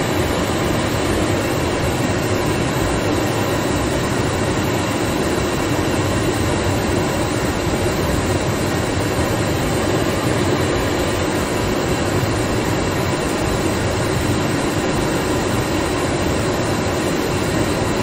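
Car heater blower running steadily, air rushing from the vents with an even, unchanging sound.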